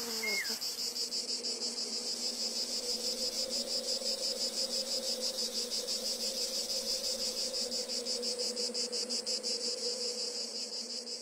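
A cricket singing steadily, a high-pitched trill pulsing at about seven beats a second. Two short falling whistles sound right at the start.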